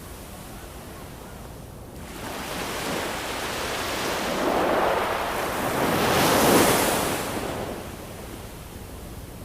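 Ocean waves: a low steady wash, then one wave builds from about two seconds in, breaks loudest a little past the middle, and recedes.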